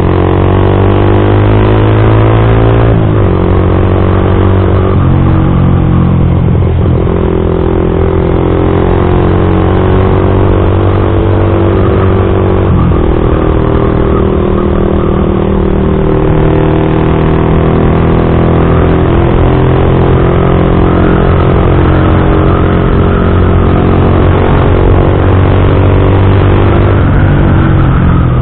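Yamaha MX King 150's single-cylinder four-stroke engine breathing through an aftermarket custom exhaust, ridden hard. It revs up through the gears, with the pitch dropping at four shifts over the first thirteen seconds or so, then settles into a steady, slowly climbing drone at cruising speed. The exhaust note is loud and bassy, which the rider likens to a two-cylinder.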